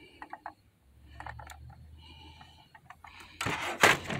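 Light plastic clicks and knocks of a toy remote-control car being handled, with a faint low hum in the middle and a louder burst of noise about three and a half seconds in.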